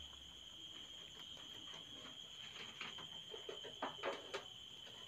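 Faint, irregular soft crunching clicks of a rabbit nibbling a leaf held to it through the wire of its cage, over a steady high-pitched whine.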